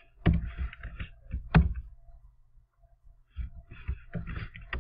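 Computer keyboard keystrokes in two short bursts of typing, with a pause of more than a second between them; the second burst starts about three and a half seconds in.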